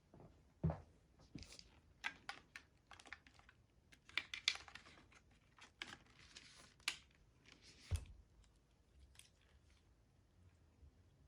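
Hands handling steering-wheel and airbag parts: scattered small clicks and taps at irregular intervals, with two duller knocks, one about a second in and one about two-thirds of the way through.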